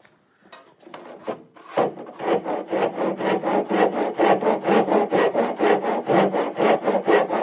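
Handsaw cutting through the end of a wooden chine, trimming it to the angle of the transom with the transom as a guide. A few short starting strokes give way, about two seconds in, to quick, even back-and-forth strokes of about five a second.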